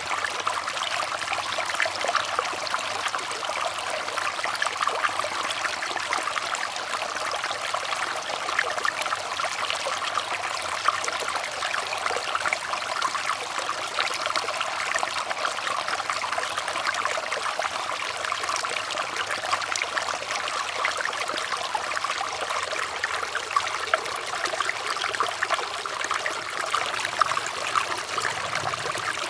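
Water flowing and trickling steadily, a constant splashing rush with fine droplet-like patter.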